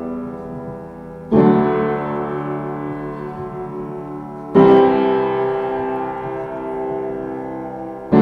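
Solo piano intro: slow chords struck about every three seconds, each left to ring and fade before the next.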